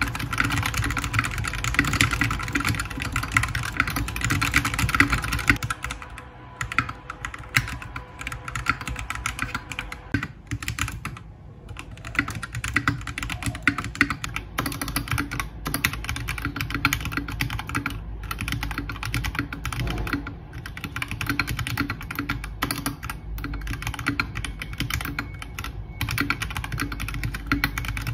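Typing on an RK61 mechanical keyboard with Akko Starfish linear switches and Akko ASA low-profile keycaps. The board is tape-modded with foam in the case and under the PCB, and its switches and stabilizers are unlubed. The keystrokes are rapid and dense, loudest in the first six seconds, and thin out briefly around ten to twelve seconds in.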